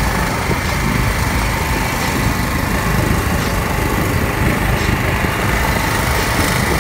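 Small red petrol engine driving a longtail-style outboard on a small boat, running steadily at cruising speed.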